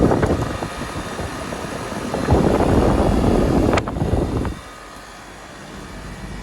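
1999 Trane XE 1100 two-ton central air conditioner's outdoor unit, with a reciprocating compressor, starting up. It makes a loud rushing noise with a sharp click near four seconds in, then settles to a quieter steady run about half a second later.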